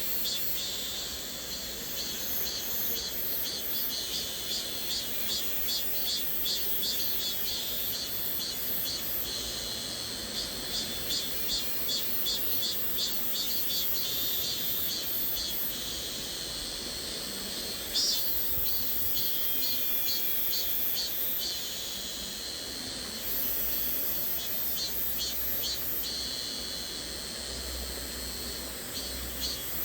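Cicadas singing: a high-pitched, fast-pulsing drone that swells and eases in waves, over the low steady rush of a flowing stream.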